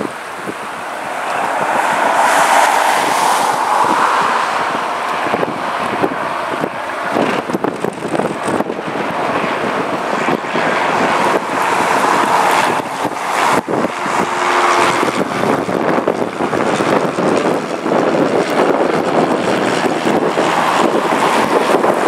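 Wind buffeting the microphone over the drone of a light single-engine propeller plane flying overhead.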